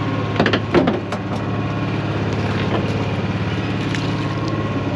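A boat's engine idling with a steady low hum. About half a second in comes a brief burst of loud splashing and knocking as the net and fish are worked over the side of the boat.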